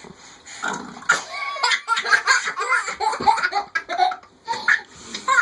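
A child laughing in many short bursts, sounding like a small room.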